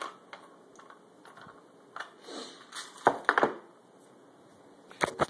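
Scattered clicks and knocks of a GSI Outdoors Lexan hand coffee grinder being handled while its grind adjustment is turned, with a quick cluster of sharp clicks about three seconds in and two more near the end.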